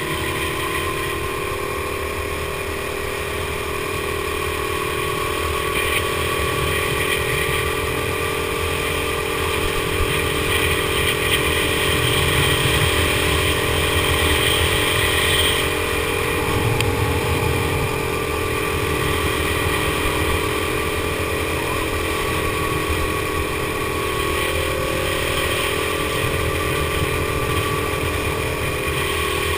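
Go-kart engine running at speed, its note rising and falling gently as the kart accelerates and eases off through the corners, with low wind rumble on the microphone.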